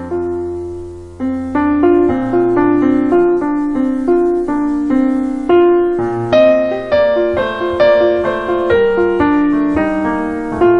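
Background piano music: a steady run of single struck notes, each fading away, over lower sustained notes, with a brief lull about a second in before the melody resumes.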